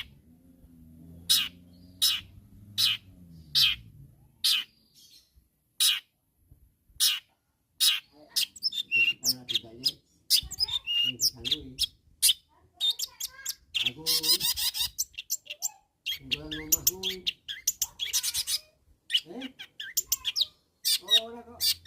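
Long-tailed shrike (cendet) in full song, a challenge song calling out rival shrikes: sharp harsh single notes about one a second, then from about eight seconds in a rapid mix of chattering, warbling and harsh rasping notes.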